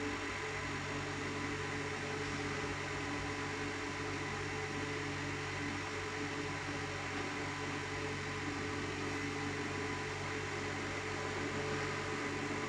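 Excavator engine running steadily with an even, unchanging hum.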